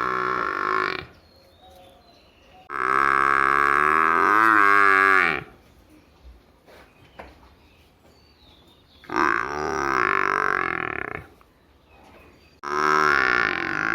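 Buffalo calf mooing in long drawn-out calls. One call ends about a second in, two full calls of two to three seconds follow with pauses between them, and another starts near the end.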